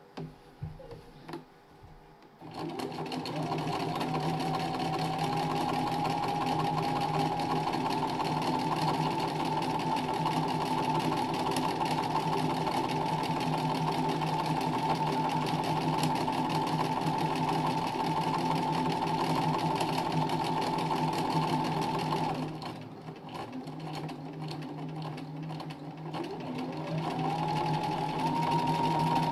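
Domestic sewing machine stitching free-motion embroidery, starting a couple of seconds in with a rising whine and running fast and steady. About two-thirds of the way through it slows and quietens for a few seconds, then speeds back up near the end. A few light clicks come before it starts.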